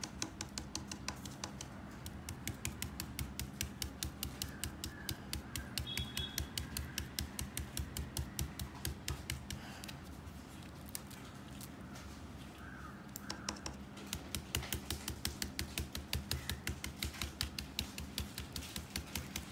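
Stencil brush dabbing chalk paint through a stencil: quick, even taps at about five a second, stopping for a few seconds past the middle and then resuming.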